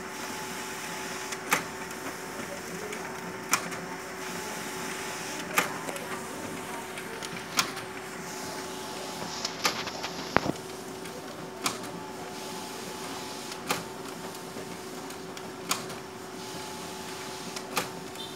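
Office photocopier running a copy job on A4 paper: a steady hum with a sharp click about every two seconds, and a louder click about ten seconds in.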